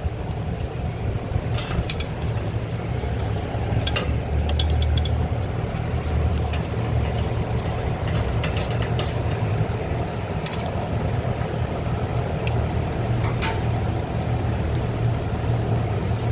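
Scattered light metallic clicks of hand tools as the shifter mounting bolts are tightened, over a steady low hum.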